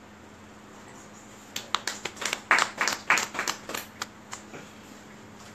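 A small audience clapping by hand for about three seconds, a run of sharp separate claps that thins out and stops: applause at the end of a poem reading.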